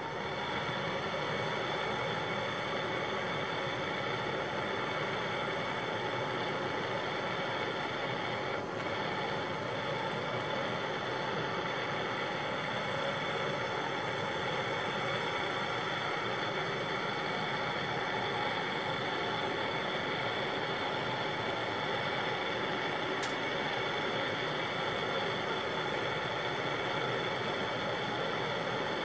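Steady rushing hiss of a glassworking gas torch flame, working the glass envelope of a homemade vacuum tube.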